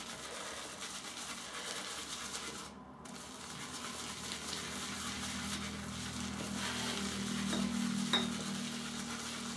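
Shaving brush swirled round a large ceramic shaving scuttle, working shaving soap into a lather from a brush that has been dipped in water and shaken out. It makes a steady wet brushing noise.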